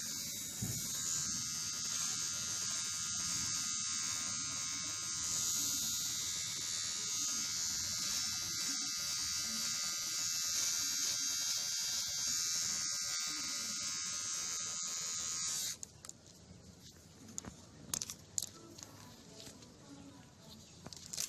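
Kemei KM-2850 electric hair clipper running with a steady buzz while cutting hair through a 10 mm guard. The buzz stops suddenly about three-quarters of the way through, leaving only faint clicks and rustling.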